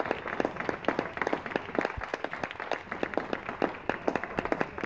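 Audience applauding, a dense, irregular patter of hand claps in which single claps stand out.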